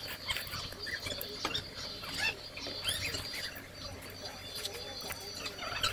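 Quiet eating sounds at a table: scattered small clicks and short squeaky slurping and chewing noises over a faint steady high-pitched hum.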